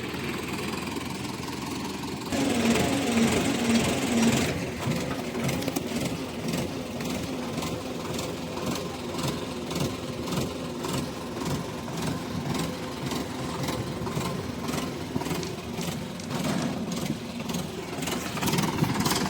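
Diesel engine of heavy earthmoving machinery running steadily. It grows louder for about two seconds soon after the start, then settles back to an even run.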